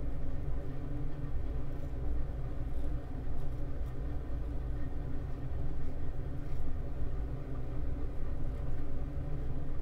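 Steady low mechanical rumble and hum of a basement sump pump motor running, carried up through the floor joist that its discharge pipe runs along. A few faint short scrapes of a safety razor sit on top.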